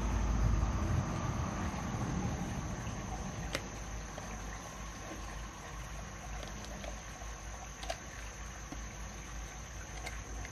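Steady high-pitched insect trilling, with a low rumble in the first second or so and a few sharp clicks of a knife blade against a freshwater mussel's shell as it is pried open.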